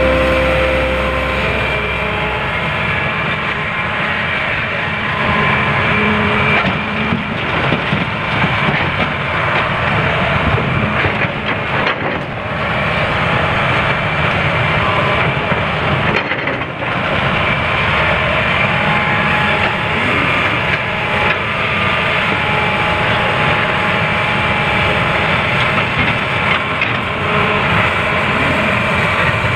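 Hitachi 310 tracked excavator working under load, its diesel engine and hydraulics running with a steady high whine, as it digs rock and dumps it into a dump truck's steel bed with irregular clattering knocks.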